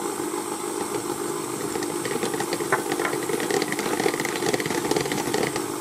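Electric hand mixer running steadily, its beaters whisking cake batter in a plastic bowl.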